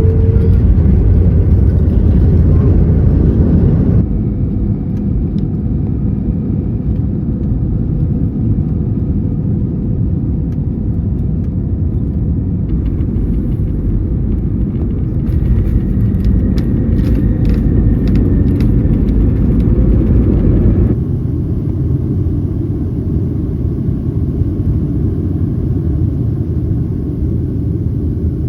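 Jet airliner cabin noise: a steady low rumble of engines and airflow, first a Boeing 737-9, then an Airbus A321neo from about 4 seconds in, then a Boeing 757-300 near the end. The noise changes abruptly at each switch. Light rattling comes through in the middle of the A321neo part.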